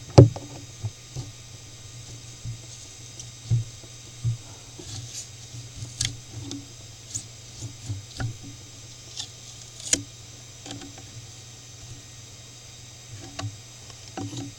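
Spindle of a small CNC mill running steadily with a low hum and a high whine, while the end mill cuts the copper-clad circuit board with irregular ticks, knocks and scraping.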